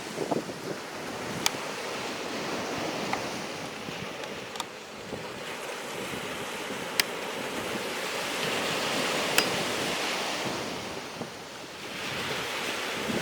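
Sea surf washing on the beach, its rushing noise swelling and easing, with a few sharp clicks scattered through it.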